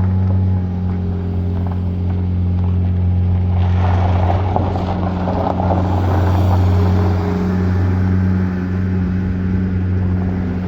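Engine of farm loading machinery running steadily with a deep hum, and a rush of louder noise about four seconds in.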